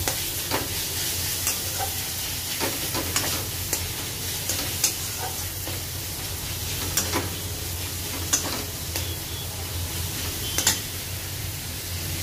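Chopped onions sizzling as they fry in oil in a kadai, being browned until reddish, while a metal spatula stirs them and scrapes and clicks against the pan at irregular moments.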